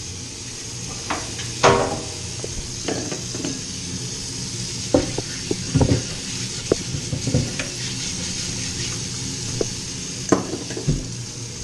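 A frying pan sizzling on the stove as a steady high hiss. Scattered clinks and knocks of dishes and utensils being handled on the kitchen counter sound over it.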